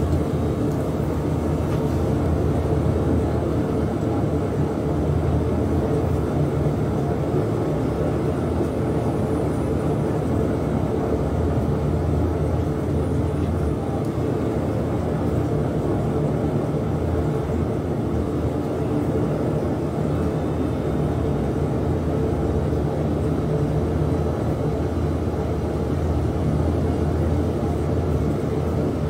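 Electric potter's wheel running at a steady speed, a continuous low hum and rumble from its motor while wet clay is worked on the spinning wheel head.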